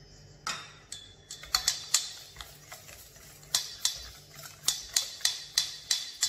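Wire whisk clicking against a stainless steel mixing bowl as milk is whisked by hand into the batter. Sharp, irregular clicks come about three a second, starting about half a second in.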